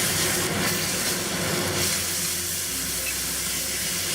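A stir-fry of chicken and vegetables hissing and steaming in a hot pan just after chicken stock has been poured in, a steady hiss with a low hum underneath.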